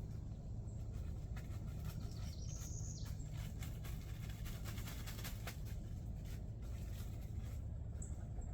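Small clicks and rustles of hands fitting and pressing a new hook-and-loop sanding disc onto the sander's pad, with the sander not running, over a low steady rumble. A brief high chirp about two and a half seconds in.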